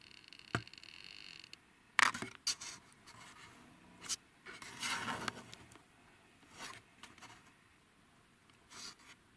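Handling noise from a handheld camera: short scrapes and rubs of hands and clothing against it, about half a dozen spread over several seconds, the sharpest about two seconds in.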